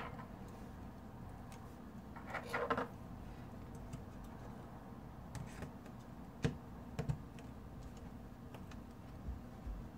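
Scattered small clicks and taps of handling a phone and tools on a workbench, with a short rattling cluster about two and a half seconds in.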